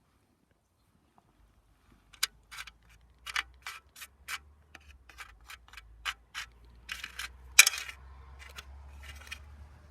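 A run of sharp clicks and taps, about three a second and somewhat irregular, over a faint low hum that sets in about a second and a half in.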